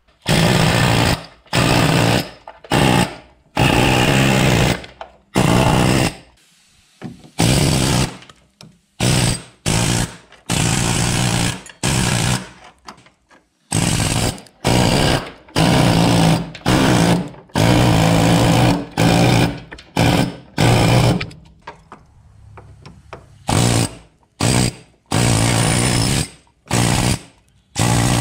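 Pneumatic air chisel hammering undercoating off the sheet metal of a car's inner fender. It runs in many short bursts of up to about a second and a half, with brief pauses between.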